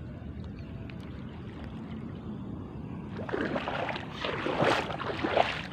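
Low wind rumble, then from about three seconds in, irregular splashing of a hooked snakehead thrashing at the water's surface as it is drawn toward the bank.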